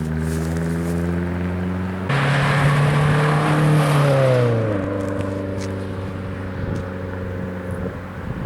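Car engine and exhaust running steadily. About two seconds in it turns suddenly louder with a rushing hiss, the pitch falls around four seconds in, and it then settles into a steady lower drone.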